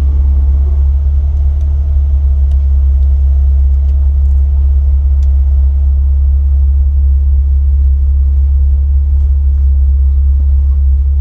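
Jeep Wrangler LJ engine running with a steady low rumble, no change in pitch, a few faint ticks over it.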